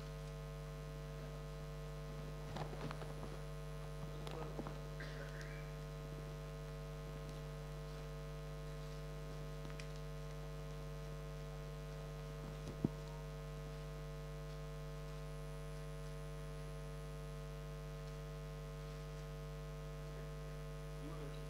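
Steady electrical mains hum, a low buzz with a stack of overtones, picked up through the venue's sound system, with a single sharp click about thirteen seconds in.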